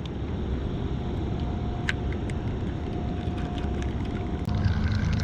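A boat's motor running with a steady low rumble, joined near the end by a steadier, louder hum. A few light clicks are heard around the middle.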